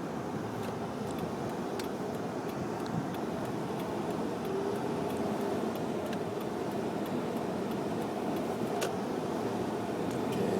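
Steady engine and tyre noise heard from inside a moving car, with faint scattered clicks.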